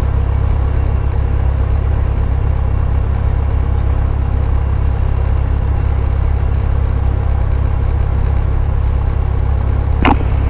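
Cessna 172's piston engine droning steadily at low taxi power, heard from inside the cockpit. A sharp click comes near the end.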